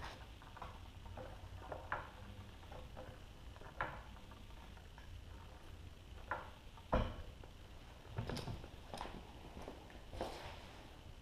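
Hydraulic floor jack being pumped to raise the rear suspension toward ride height: a string of separate clicks and knocks every second or two, with one heavier thump about seven seconds in.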